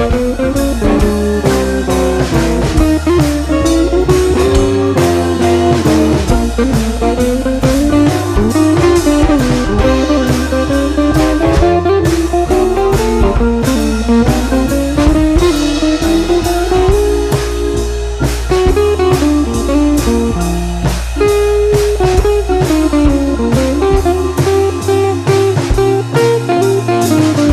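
Background music: a guitar-led instrumental with drums and a steady beat, the melody gliding up and down.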